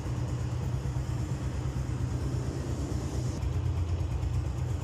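Honda CB125F motorcycle's single-cylinder four-stroke engine idling steadily, a low even pulsing with no revving.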